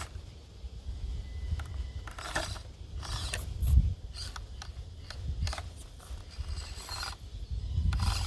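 Axial SCX24 micro rock crawler's small electric motor and geared drivetrain whining on and off as it crawls over rock. Its tyres and body scrape and click against the stone now and then.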